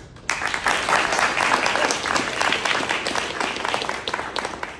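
Audience applauding: many hands clapping together, starting suddenly just after the start and dying away near the end.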